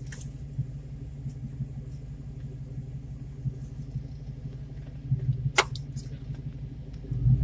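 Steady low rumble of a car driving slowly, heard from inside the cabin, with a sharp click about five and a half seconds in.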